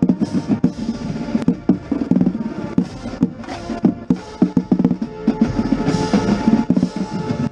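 Marching band playing, with sustained wind chords and frequent strokes on a marching bass drum struck right at the microphone.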